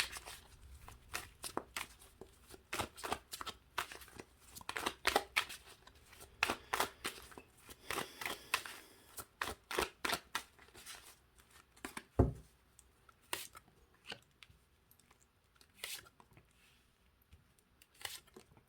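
Tarot cards being handled on a table: a run of short rustling flicks and clicks as the deck is shuffled and cards are drawn and laid down, with one louder thump about twelve seconds in.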